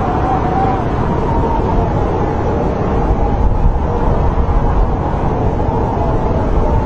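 Snowstorm wind blowing steadily, a loud low rumble with a faint wavering whistle above it.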